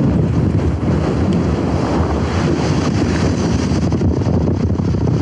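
Strong wind buffeting the camera's microphone: a loud, steady, low rumble.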